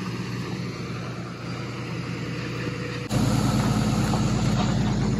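Car engine and road noise heard from inside a moving car, a steady low hum that suddenly grows louder about three seconds in.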